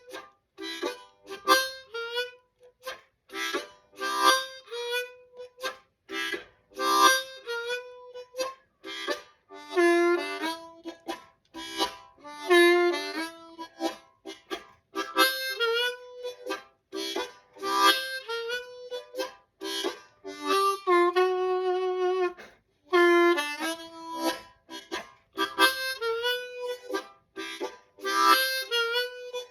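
Solo C diatonic blues harmonica in second position (key of G) playing short licks with rhythmic chugging chords between them, the breath-driven chord hits coming in quick repeated pulses. About two-thirds of the way through a chord is held for a couple of seconds.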